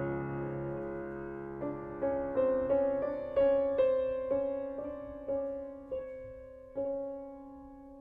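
Solo grand piano played slowly and quietly: a held chord fades, then single notes and small chords are struck one after another, each ringing out. Near the end they come further apart and softer.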